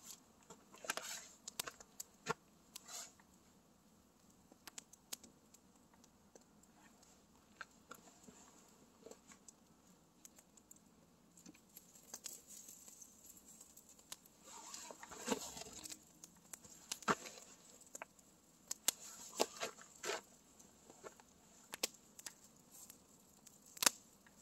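Wood campfire crackling, with sharp, irregular snaps and pops, and a longer rustle about halfway through.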